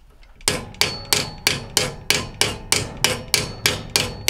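A hammer striking a steel socket extension in a steady run of sharp metallic clangs, about three a second. It is driving the new plastic drive coupler half down onto the washer's transmission shaft.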